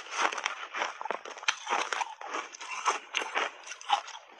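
Close-miked chewing of crunchy refrozen shaved ice coated in matcha powder: rapid, irregular crunches, several a second.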